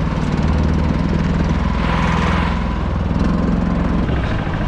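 A small engine running steadily at a low, even pitch.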